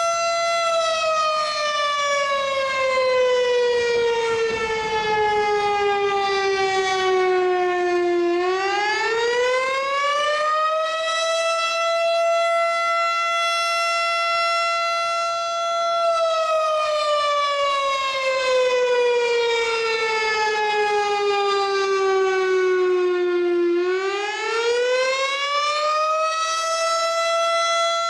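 A siren wailing: one tone that slides slowly down in pitch over about eight seconds, swoops back up within two seconds, holds steady, then slides down and swoops up again.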